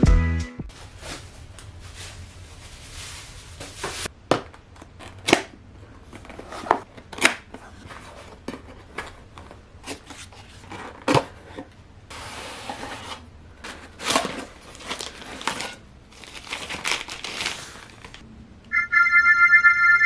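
Cardboard camera box and its paper packaging being opened by hand: irregular crinkles, taps and soft knocks of flaps and inner sleeves. Near the end a bright, steady chiming tone sounds for about a second and a half, the loudest sound here.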